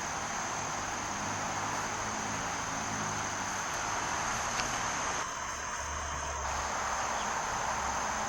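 Insects buzzing in a steady, high-pitched drone over a constant outdoor hiss.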